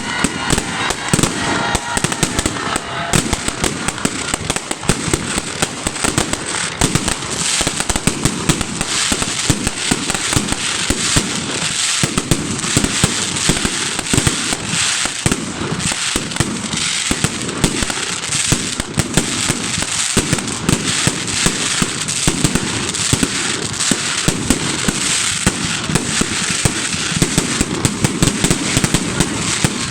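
Fireworks display going off without a break: dense, rapid crackling pops overlapping one another.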